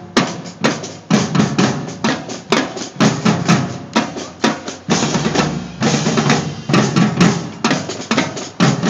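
A marching drumline of snare drums and bass drums playing a loud, fast rhythmic pattern together, with a brief stretch of unbroken sound about five seconds in where the separate strokes run together into a roll.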